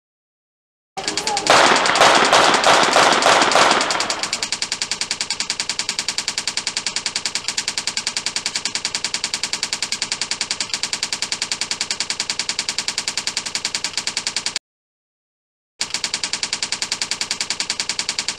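Typewriter sound effect: a fast, even run of key clicks starting about a second in, a louder, busier clatter for the first few seconds, then steady clicking that breaks off for about a second near the end and resumes.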